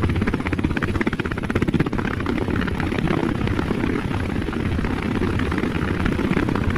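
Helicopter in flight: a steady, fast rotor chop.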